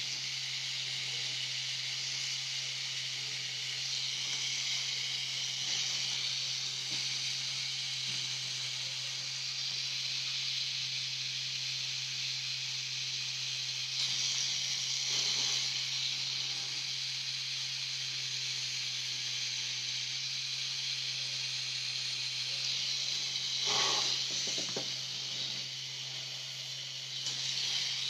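Pen-style rotary tattoo machine running steadily as it shades into skin: a constant low hum under a steady hiss. A paper towel wiping over the skin rustles briefly a couple of times, loudest near the end.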